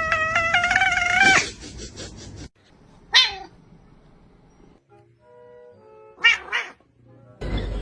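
A domestic cat's long, wavering yowl that breaks off about a second and a half in, followed by two short meows, one about three seconds in and one about six seconds in.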